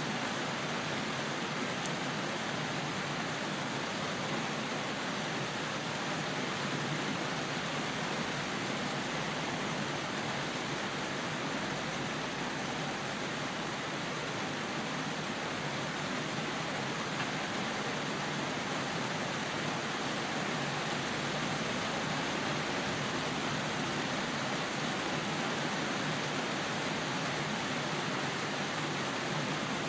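Steady, even rain noise with no distinct drops or thunder.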